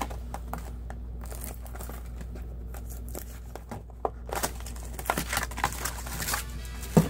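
Foil booster-pack wrappers crinkling and tearing open as trading cards are handled. The irregular crackles are sparse at first, thicken in the second half and are sharpest just before the end.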